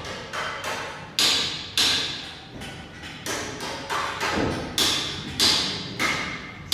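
Irregular run of sharp knocks and metal clanks, one to three a second, each ringing briefly, from work on an air compressor assembly line.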